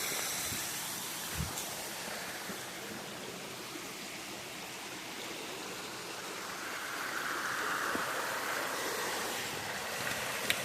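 Steady rushing of creek water, growing louder for a few seconds past the middle, with a couple of faint knocks.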